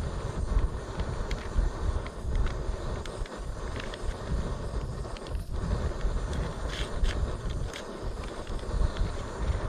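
Wind buffeting the microphone in uneven gusts, with a few faint clicks and rustles over it.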